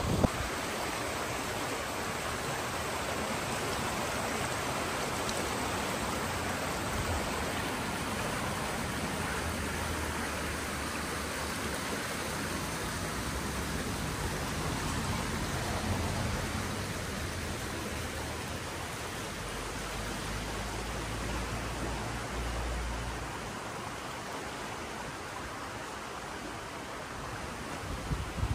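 Ellerbeck, a moorland stream in full flow, rushing steadily over its bed.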